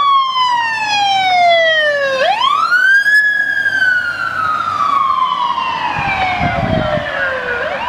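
Emergency siren on a responding fire department vehicle, sounding a wail. The pitch falls slowly, sweeps quickly back up about two seconds in, falls slowly again, and starts rising once more at the very end. A low rumble comes in briefly about six seconds in.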